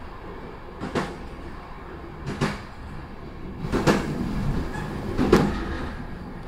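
Train running along the track, heard on board: a steady rumble with a sharp clack about every second and a half.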